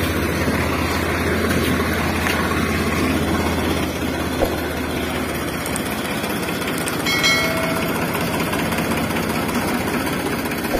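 Remote-control toy excavator running: a steady engine-like hum with rattling as it digs and loads sand. A brief chime rings about seven seconds in.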